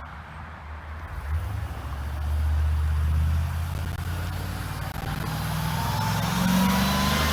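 A low, steady engine-like rumble, building up about two seconds in, with a faint rising whine near the end.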